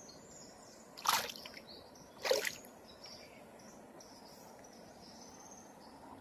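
Two short splashes in shallow water, a little over a second apart.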